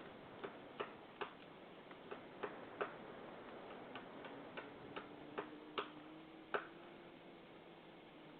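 A dozen or so short, sharp knocks at uneven intervals, roughly one or two a second and varying in loudness; the loudest comes about six and a half seconds in.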